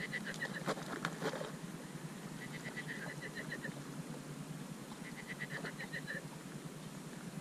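An animal's call: a rapid run of high chirps about a second long, repeated three times at even intervals. A few sharp clicks come about a second in.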